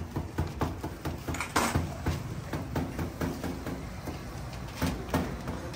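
Cleaver chopping roast meat on a wooden chopping board: a run of sharp knocks, a few a second, the loudest about a second and a half in and near the end, over a steady low rumble.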